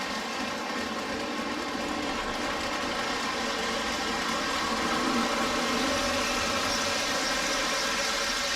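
Postwar Lionel O-gauge toy train running on the track layout: the steady hum of its electric motor and the running noise of its wheels, swelling slightly about halfway through.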